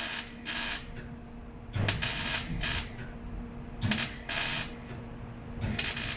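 Welding arc crackling in a series of short bursts, each under half a second, with a steady electrical hum underneath.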